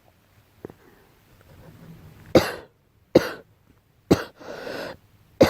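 A girl coughing: after a couple of quiet seconds, four short, sharp coughs about a second apart, with a drawn breath between the third and the last.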